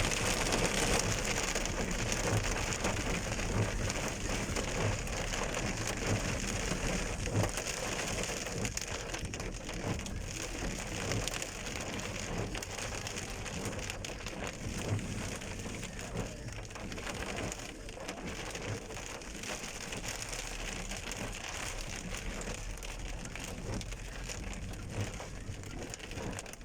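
Heavy rain falling and splashing steadily on surfaces, easing slightly in loudness as it goes on.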